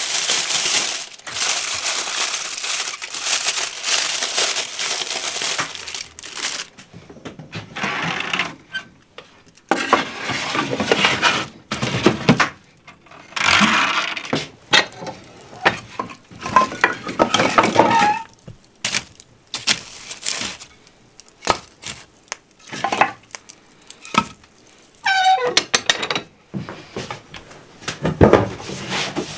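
Aluminium foil being crumpled and folded by hand, a dense crinkling for about the first six seconds. After that come scattered knocks, clicks and clatter of kitchen handling, including the door of a small tabletop electric oven, and a short falling squeak near the end.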